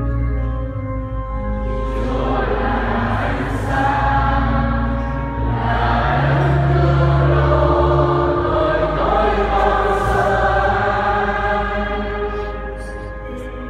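A choir singing slow church music, holding long notes that change every second or two over sustained low notes.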